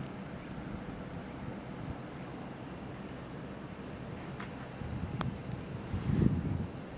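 A steady high-pitched insect chorus, with a low rumble swelling about six seconds in and a single sharp click shortly before it.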